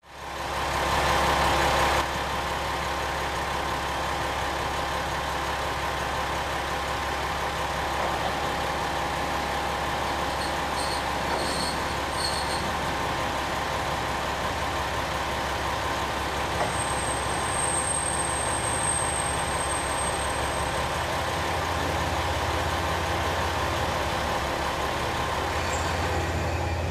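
Diesel railcar heard from inside the carriage: a steady low engine drone with the running noise of the car. The low drone grows stronger about three quarters of the way through.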